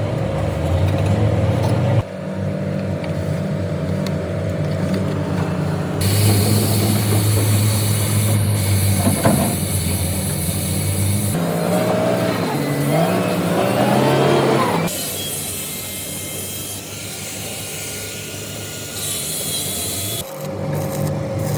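A heavy machine's engine running in a string of short clips that change abruptly every few seconds, with a wavering whine that rises and falls in the middle stretch.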